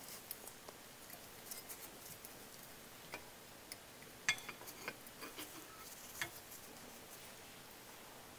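Faint, scattered clicks and taps of small metal and plastic parts being handled and fitted together by hand on a workbench, as the boiler's air-intake damper assembly is put back together. The sharpest clicks come a little after four seconds and about six seconds in.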